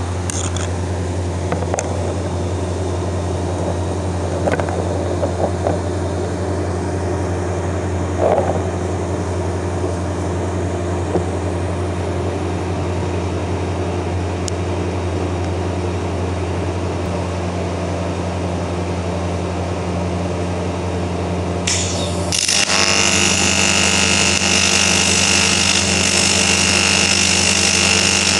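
A steady low hum with a few small knocks, then about three-quarters of the way through a loud, steady buzzing hiss sets in: a TIG welding arc running on cast aluminium, the crack in a starter motor end case being welded while it is clamped in line.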